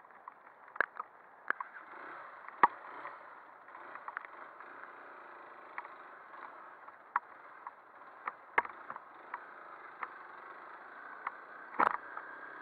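Steady muffled noise of a dirt bike ridden along a rutted muddy track, broken by a dozen or so sharp knocks as the bike jolts over the ruts, a few of them much louder, the last near the end.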